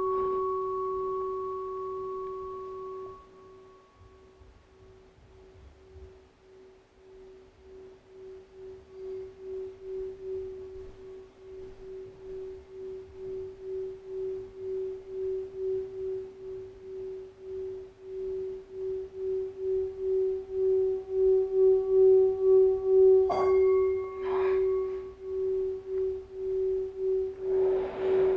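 Brass singing bowl: the ring of a strike fades over the first three seconds, then the bowl is rubbed round the rim with a mallet and sings one steady tone that pulses about twice a second and grows louder. One sharp clink of the mallet against the bowl about 23 seconds in.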